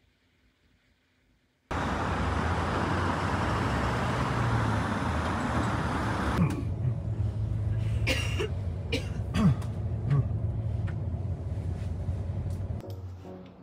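Near silence, then a loud rush of street traffic starting suddenly under two seconds in. About six seconds in it gives way to the steady low hum of a moving bus, with scattered clicks and knocks.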